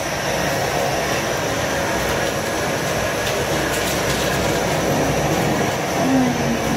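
Steady rushing noise from a large aluminium steamer pot of ashak dumplings on the boil.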